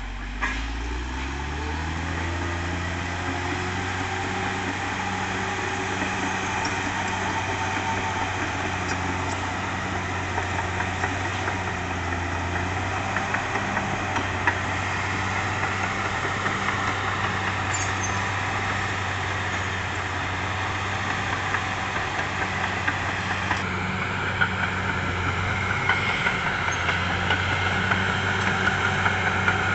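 Caterpillar D6R XL bulldozer's diesel engine revving up over the first second or so, then running at a steady speed, with scattered short knocks. About three-quarters of the way through, the engine note changes and grows harsher.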